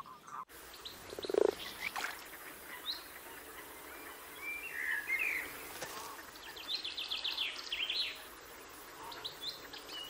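Wildlife ambience of small birds chirping, with a quick run of chirps around seven seconds in, over a soft steady hiss. About a second and a half in comes one low, rattling amphibian croak.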